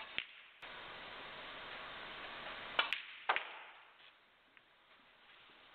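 Snooker balls clicking sharply as cue and balls strike: one click just after the start, then three quick clicks about three seconds in. They sit over an even hiss that fades out about four seconds in.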